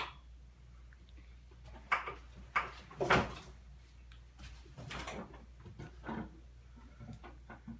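Irregular knocks and swishes of hanging wooden grips and rope as a man swings hand over hand across a ninja-style obstacle rig, over a low steady hum. The loudest hit comes about three seconds in.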